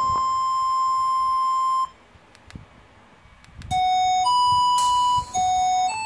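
Electronic ringtone playing through the K-Touch B2020 feature phone's loudspeaker. One long held beep-like note lasts about two seconds. After a pause with a couple of faint clicks, a run of short notes steps between different pitches.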